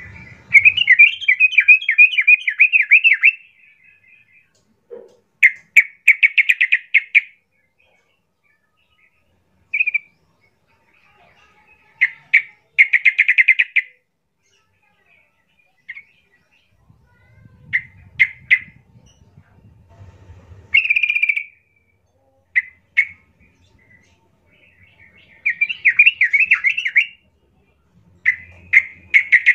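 Yellow-vented bulbul singing in bursts: about ten quick, bubbly, chattering phrases separated by pauses of a second or more, the first and longest lasting about three seconds.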